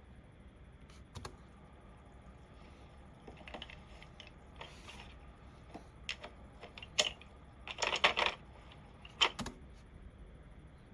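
Computer keyboard keystrokes, typed sparsely, with a short quick run of several keys about eight seconds in.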